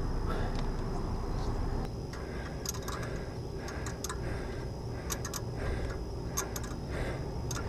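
Irregular metal clicks and light scraping from a pipe-thread tap being worked into the hole in the exhaust manifold to cut threads for the EGT probe. The clicks come thickest in the second half, over a low, steady rumble.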